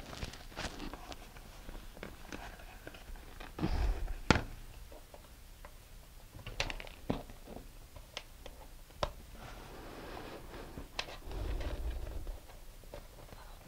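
Hands handling a plastic rocket transition and body tube, lining them up and pressing removable plastic rivets into the holes. Scattered light clicks, taps and rustles, the sharpest about four seconds in.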